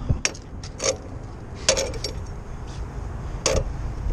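Several separate metallic clinks and knocks as a factory lug wrench is worked on the lug nuts of a dually rear wheel, over a steady low rumble.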